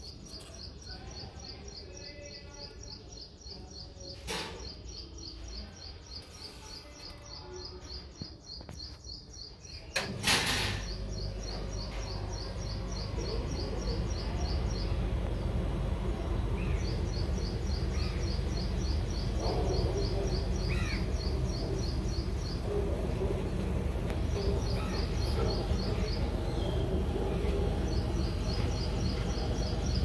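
Rapid high-pitched chirping, pulsing several times a second in runs of a few seconds with short breaks. About ten seconds in there is a sharp knock, after which a steady low rumble sits underneath.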